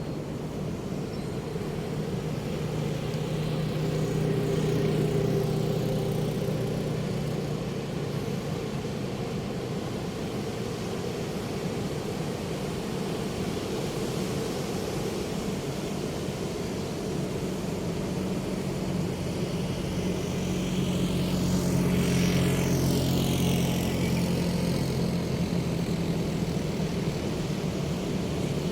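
Aircraft engine droning overhead, a steady hum that swells twice. It is loudest about 22 seconds in, where a phasing whoosh rises and falls as the plane passes.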